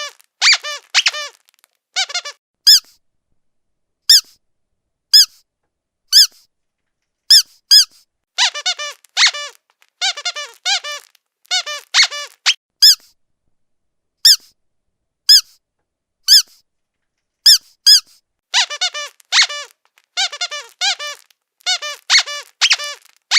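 Squeaky dog toy squeezed over and over, its rubber squeaker giving high pitched squeaks: single squeaks about a second apart in places and quick runs of several squeaks in others.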